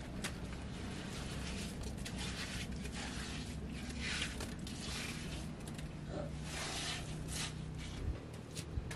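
Hands scraping and patting wet mud while shaping a mud hearth, in irregular rustling strokes, over a steady low hum.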